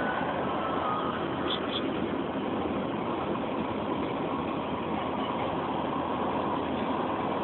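Steady engine and road noise heard inside a vehicle's cabin, an even rumble and hiss that does not change.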